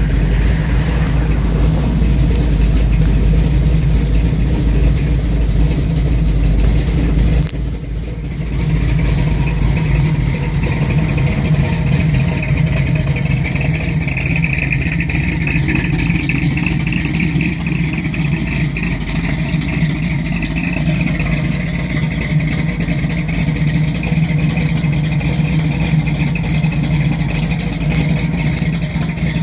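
1971 Chevrolet Camaro SS's 402 big-block V8 at a rough idle, a steady low engine note. The loudness dips briefly about eight seconds in, and the deepest part of the note is weaker after it.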